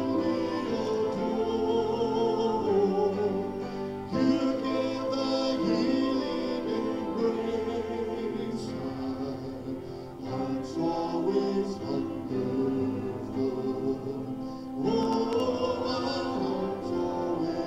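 Church worship song: music with singing, going in phrases with brief dips about four, ten and fifteen seconds in.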